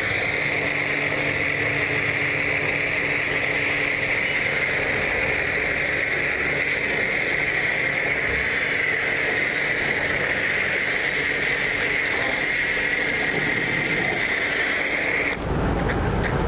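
Portable electric pressure washer running steadily, with a high motor-pump whine over the hiss of its spray. It cuts off abruptly near the end, as it does when the spray gun's trigger is let go.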